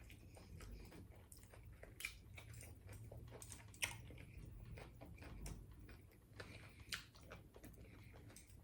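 Faint chewing of a taco, with a few soft clicks scattered through it.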